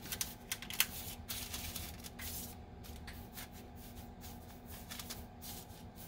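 A hand spreading and patting dry citrus powder over parchment paper on a metal baking sheet: soft, irregular rustling and brushing.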